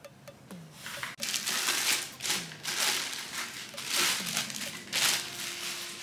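Plastic packaging crinkling in irregular bursts as vacuum cleaner parts are handled, with one sharp click about a second in.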